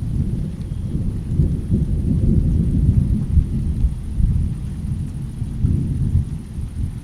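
Rolling thunder: a deep, low rumble that swells to its loudest a couple of seconds in, then eases off while still rumbling.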